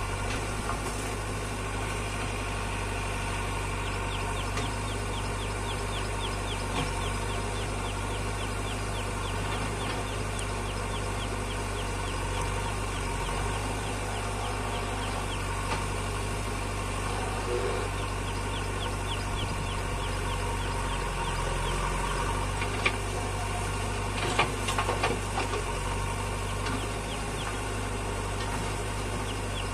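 Diesel engines of a JCB backhoe loader and a Mahindra Arjun 555 DI tractor running steadily while the backhoe digs and loads soil. A sharp knock comes about three quarters of the way in, followed a second later by a short run of knocks.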